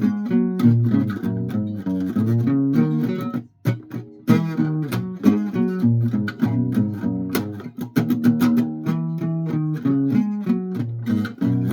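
A musical instrument played note by note in a quick, uneven run of short pitched notes, with a brief break about three and a half seconds in.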